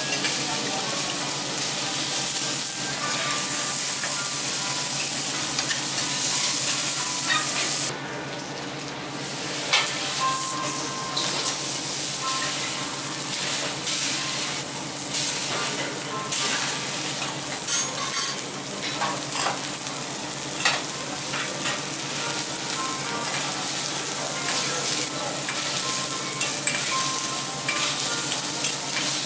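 Food sizzling steadily on a teppanyaki iron griddle, with metal spatulas clicking and scraping against the iron. The sizzle drops away for about a second and a half around eight seconds in.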